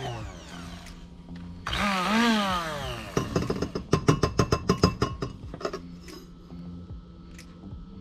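Bella immersion blender with a stainless steel blending arm whirring in a glass measuring cup of marinade: its motor winds down at the start and spins up and down again about two seconds in. Background music with a steady beat plays over it.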